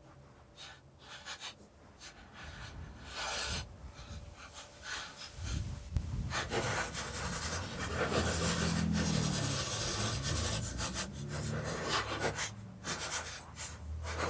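Scraping and rubbing of metal hardware as washers and nuts are fitted and tightened by hand onto the back of an exhaust-clamp U-bolt through the truck bed wall, getting busier about six seconds in, with the worker breathing hard.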